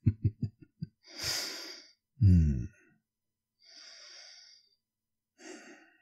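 A man breathing and murmuring between words: a quick run of short, soft low voiced sounds, a breath in, a brief louder voiced murmur like a 'hmm', then two quieter breaths out.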